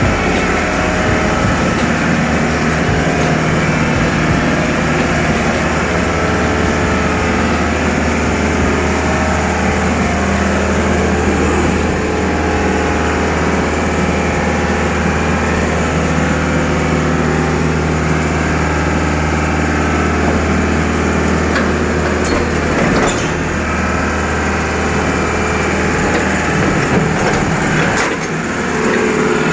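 Heavy-equipment diesel engine running steadily, with a few short knocks near the end.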